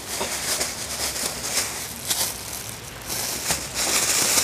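Skewered lamb offal and meat sizzling and crackling over hot charcoal in a mangal, a dense hiss full of small pops that starts suddenly.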